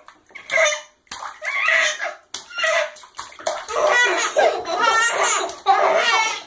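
Baby laughing in bursts, short at first and then a longer run of laughs in the second half, with an older child's voice and bathwater splashing.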